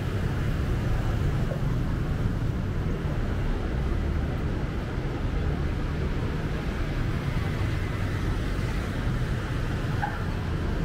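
City street ambience: a steady low rumble of passing road traffic under a general haze of street noise.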